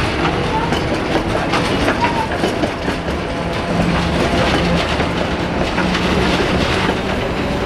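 Two-car Tatra T3 tram rolling past on curved street track, its steel wheels clattering over the rail joints.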